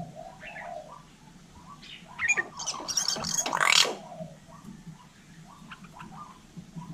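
Hill myna calling with a string of short, harsh squawks and whistles, loudest about two to four seconds in.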